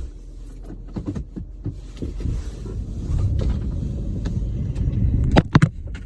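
Jeep Grand Cherokee in four-wheel-drive low, straining to move through deep snow: a low rumble that builds over a few seconds, heard from inside the cab. A few sharp knocks come near the end.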